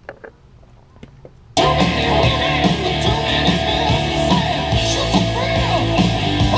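Guitar music starting abruptly about a second and a half in, played from a music player through a TDA7293 amplifier kit on its first test, with a few faint clicks before it.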